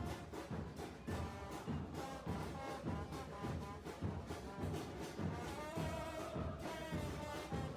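Brass-led music with a steady, regular beat.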